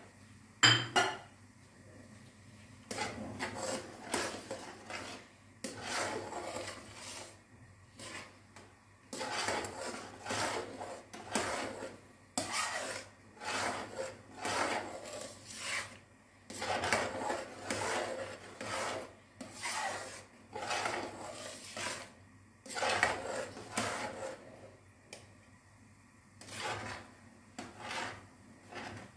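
A long metal spoon scraping and stirring a thin semolina halwa batter in a wok, in a steady run of scrapes about one a second, kept going to stop lumps from forming. A sharp knock about a second in is the loudest sound.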